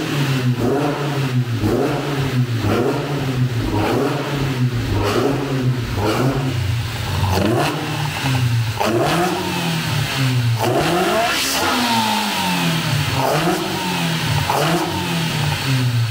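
Fiat Uno's naturally aspirated four-cylinder engine revving loudly: quick throttle blips about once a second, then longer sweeps to higher revs in the second half, falling back toward a steady idle near the end.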